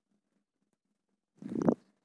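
Near silence, then a short, low vocal sound from a person about a second and a half in, just before speech resumes.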